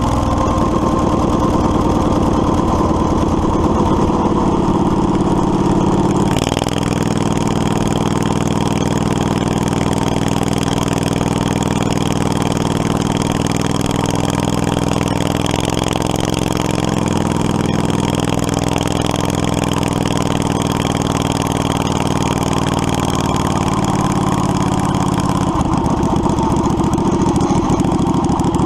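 Predator 670cc V-twin engine of a Yerf Dog 3203 go-kart running steadily at a constant pitch. The tone shifts slightly about six seconds in and again near the end.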